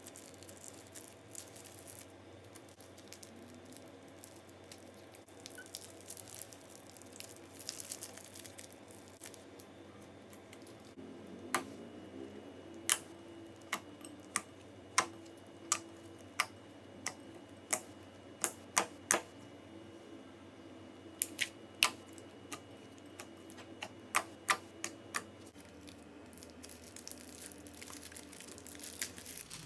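Crunchy slime being handled: faint crackling at first, then irregular sharp clicks and pops as the slime is pressed and worked, from about a third of the way in until near the end.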